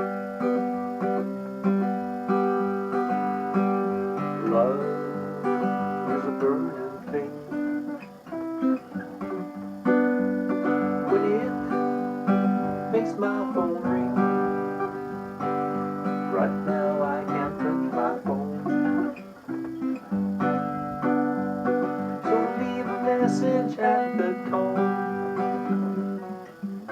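Guitar music: a ringtone tune of plucked and strummed chords over held bass notes.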